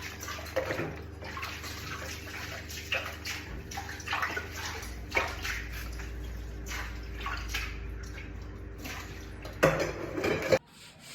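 Water running and splashing in uneven bursts over a steady low hum, cutting off suddenly near the end.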